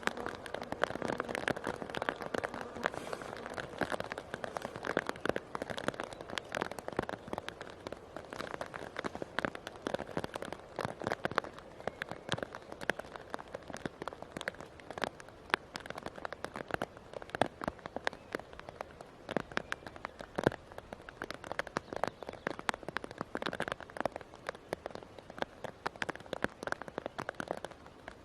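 Steady rain, with many separate drops ticking sharply on a nearby surface.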